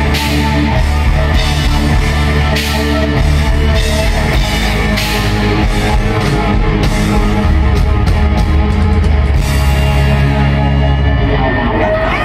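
A live hard rock band plays loud through an arena PA, with pounding bass, guitar, and drums marked by repeated cymbal crashes. The band sound thins out near the end.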